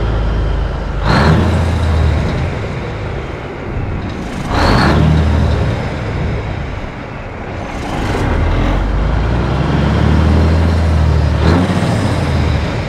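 Diesel engine of a 1986 Ford LT9000 truck revved from idle three times. The last rev is held for a few seconds before it drops back.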